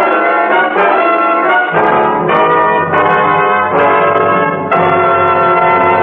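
Brass-led orchestral music cue closing the radio drama: a string of loud chords changing about every second, then a long held final chord from near the end.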